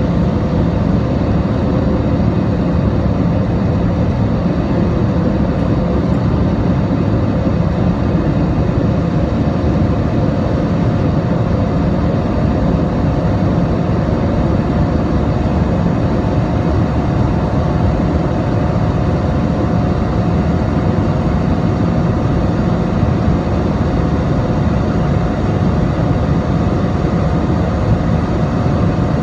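Cabin noise of an Airbus A320-216 in flight, from its CFM56-5B turbofan engines and the airflow over the fuselage, heard from a seat over the wing during the climb after takeoff. A steady noise with a faint constant tone in it.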